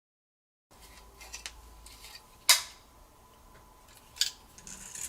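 Tools and small parts handled during smartphone disassembly: light scraping and tapping, with two sharp clicks about a second and a half apart, the first the louder, and a short scratch near the end.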